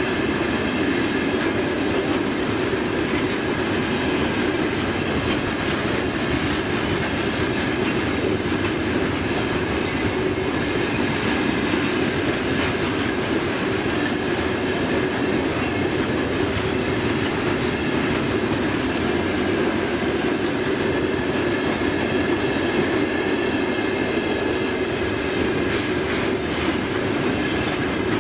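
Loaded open freight wagons rolling steadily past, their wheels running on the rails with a continuous rumble and a faint steady ringing tone above it.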